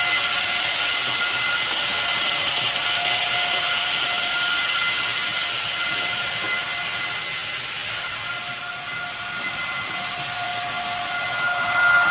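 Electric model trains running on a model railway layout: a steady motor whine with a few held tones over the hiss and rumble of wheels on the track. The whine is loudest at the start and again near the end as a locomotive passes close by.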